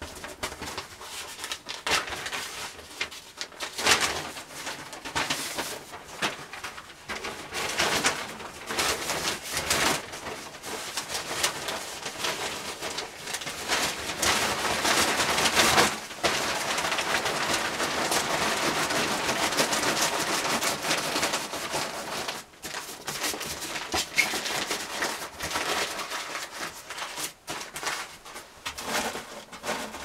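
Newspaper crumpling and rustling as paper and kindling are stuffed into a small barrel wood stove to start a fire, with a steadier rushing noise for several seconds in the middle.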